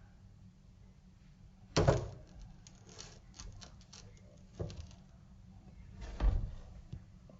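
Handling noises from objects being picked up and set down: a sharp knock about two seconds in followed by a run of small clicks, a lighter knock a little before five seconds, and a heavier thump just after six seconds.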